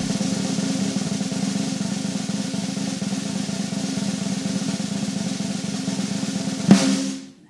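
A drum roll: a steady, fast, even roll that ends about seven seconds in with a crash that fades out.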